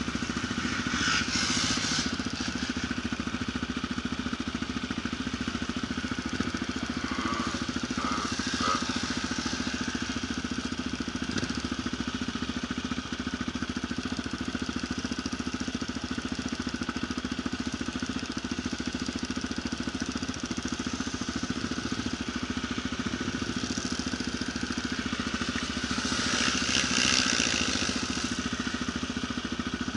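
Quad bike (ATV) engine running steadily throughout, swelling briefly louder near the end.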